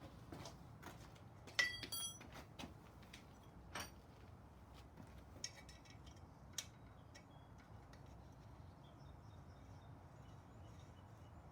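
Scattered light metallic clicks and clinks of an Allen key working on a bicycle's Allen-key nuts. The loudest is a ringing clink about one and a half seconds in, with a few single clicks after it.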